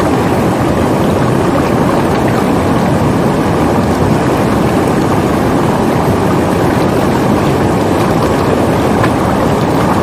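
Shallow, fast river water rushing over stones close to the microphone: a steady, loud rush of water.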